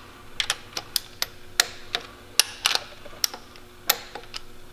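A string of sharp, irregular metallic clicks from a torque wrench tightening the valve-lash adjuster locknuts on a Detroit Series 60 diesel cylinder head to 33 foot-pounds.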